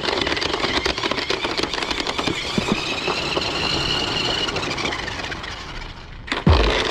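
New Bright Tumble Bee RC stunt car's battery-powered drive motors whining as it is driven, with its knobbly tyres clattering over rough concrete; the whine rises and then falls in pitch through the middle. Near the end the noise dips, then there is a sudden loud low thump.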